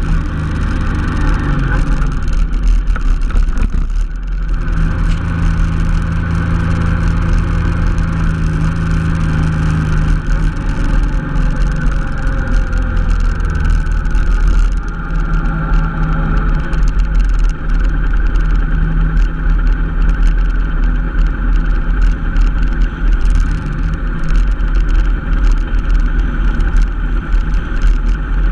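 Honda NT700V Deauville's V-twin engine running while the bike is ridden, with steady wind rush. The engine note changes about four seconds in and again around ten seconds.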